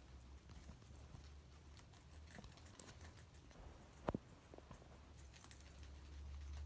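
Guinea pigs chewing chopped vegetables: faint scattered crunching and clicking, with one louder knock about four seconds in, over a low steady hum.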